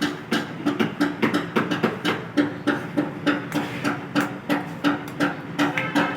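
Hammer tapping repeatedly on the metal adjuster-pulley bearing assembly, about three ringing blows a second, while the new bearing and its retaining lock are being fitted.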